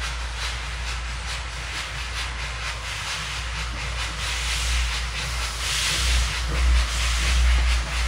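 Glover steam locomotive working toward the listener with a steady beat of exhaust chuffs. From about six seconds in, a louder hiss of steam from the open cylinder cocks joins in. A low rumble of wind on the microphone runs underneath.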